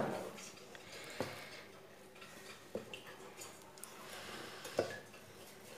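A hand mixing flour into soft butter dough in a stainless steel bowl: faint squishing and rubbing, with three short sharp knocks against the bowl, the last and loudest near the end.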